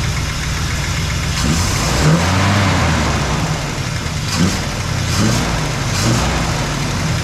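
Small-block Chevy V8 with a freshly broken-in Edelbrock cam running, its speed rising and falling a few times. It has valve train noise from valves not yet adjusted, and an exhaust leak at the old cast manifolds.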